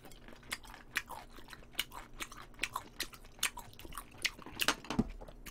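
Close-up chewing of a mouthful of galbijjim (Korean braised short ribs): irregular small clicks and smacks of the mouth, several a second.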